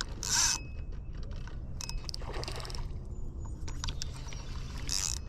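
Water splashing in two short bursts, about half a second at the start and again near the end, as a hooked carp is played in the shallows. Between them come a few light clicks from the fishing reel, over a steady low rumble.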